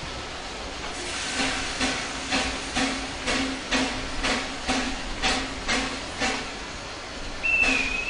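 Steam tram locomotive working along the line, its exhaust chuffing in an even beat of about two puffs a second that dies away after about six seconds. A brief high whistle-like tone sounds near the end.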